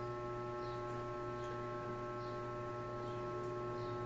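Steady electrical hum made of several fixed tones, unchanging throughout, with no other clear sound above it.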